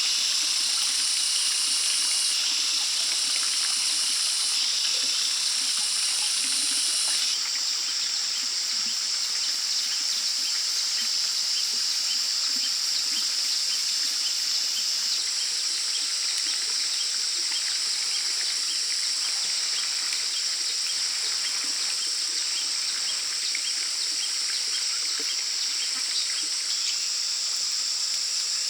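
Rainforest ambience: a steady high-pitched insect drone with scattered bird chirps. The drone changes abruptly several times in the first fifteen seconds or so.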